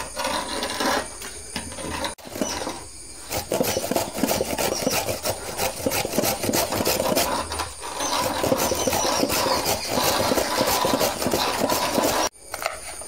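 Cardamom and sugar being ground by hand on a wooden board: a gritty scraping and crunching made of many short rubbing strokes. It dips briefly about two seconds in and stops suddenly near the end.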